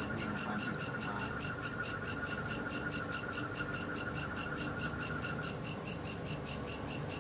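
Night insects, crickets, chirping in a steady, evenly pulsed high chorus of about six pulses a second. A lower steady trill runs alongside and stops about five and a half seconds in.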